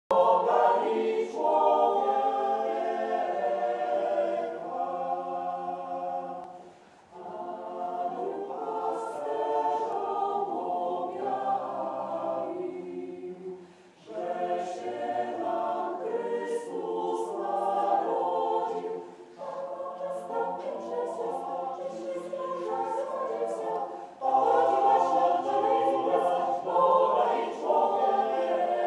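Mixed choir of women's and men's voices singing a Christmas carol a cappella in a church, in phrases broken by short pauses for breath.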